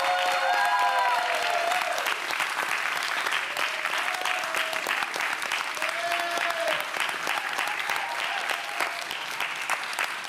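Crowd applauding, with voices cheering over the clapping in the first couple of seconds; the applause eases a little after that and carries on.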